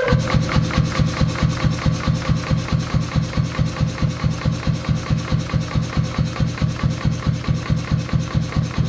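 C41-16 pneumatic forging hammer switched on, starting abruptly, then running at idle with its ram held raised. The compressor piston pumps in a steady rhythm of about five beats a second, with a steady tone over it.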